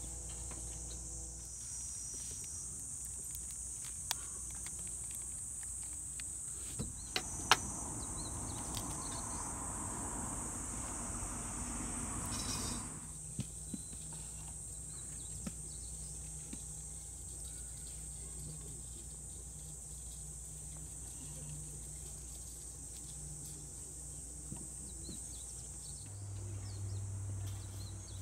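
A steady, high-pitched chorus of insects, with a few sharp knocks of a knife on a bamboo cutting board, the loudest about seven and a half seconds in. Between about seven and thirteen seconds in there is a stretch of rustling.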